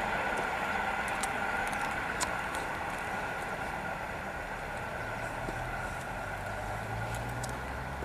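EN57 electric multiple unit running past on curved track: a steady running noise with a high steady tone, slowly fading as the train moves away, with a few sharp clicks.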